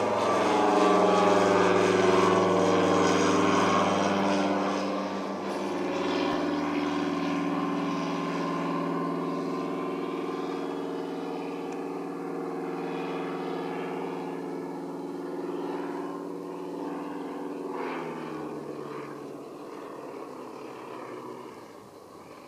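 Tiger Moth biplane's propeller engine droning steadily as it flies past, fading as it moves away. Its pitch drops near the end as it passes.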